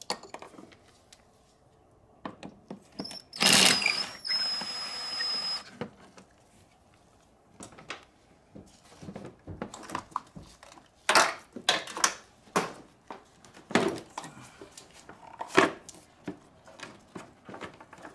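Clicks, knocks and rattles of hands working the plastic air-filter housing, the mass air flow sensor connector and the intake hose loose. About three and a half seconds in comes a louder scrape with a high squeak, lasting about two seconds.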